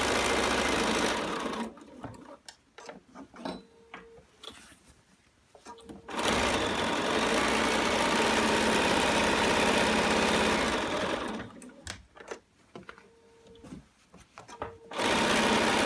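BERNINA 770 computerized sewing machine stitching at a steady speed, stopping twice for about four seconds each. In each stop come scattered clicks and two short motor whirs, the electronic presser foot lifting and lowering while the fabric is pivoted at a corner with the needle down.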